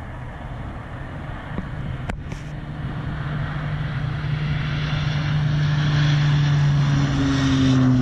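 Turboprop air tanker, heavy with a load of fire retardant, on its takeoff run. Its engine and propeller drone grows steadily louder, and the pitch drops slightly near the end as it passes.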